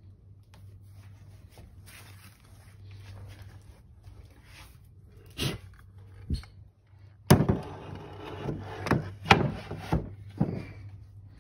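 Handling noise at a wooden cabinet of hand planes: faint rustling, then a series of sharp wooden knocks and clatter from about seven seconds in, the first one the loudest, as the planes on their wooden holders are touched and moved.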